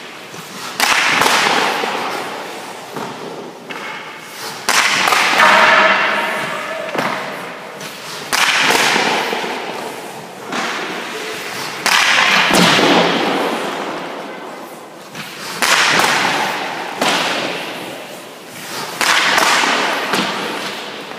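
Ice hockey pucks shot slapshot-style at a goaltender, about six shots roughly one every three and a half seconds. Each is a sharp crack of stick on puck and puck on the goalie that rings on in the rink's echo.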